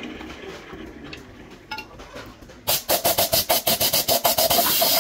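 Wood lathe spinning a hollowed wooden vessel, quiet at first. About two and a half seconds in, abrasive held against the spinning wood starts a loud rasping that pulses about eight times a second, then turns steady near the end.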